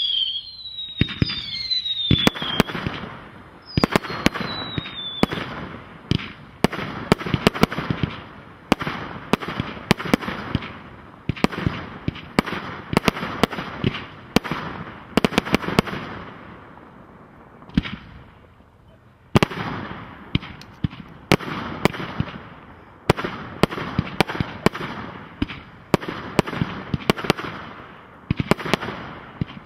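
Fireworks display: descending whistles in the first few seconds give way to rapid sharp bangs and crackling of aerial bursts. The bangs thin out to a short lull a little past halfway, then pick up again.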